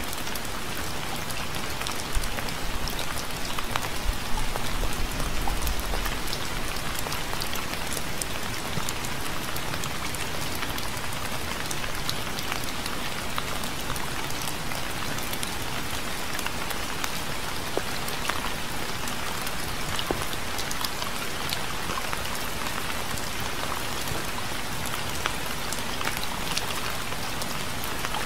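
Steady rain falling on a surface, many separate drop strikes within an even hiss. A brief low rumble swells about four to six seconds in.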